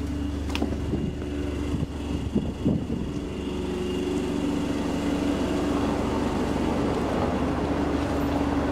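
Standing Roslagsbanan X10p electric train humming steadily at the platform, with a click and a few knocks and steps in the first three seconds as someone steps off the train. A rushing noise slowly grows louder through the rest.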